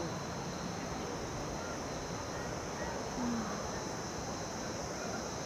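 Steady, high-pitched insect chorus from the forest, unbroken throughout, over a low rushing background noise.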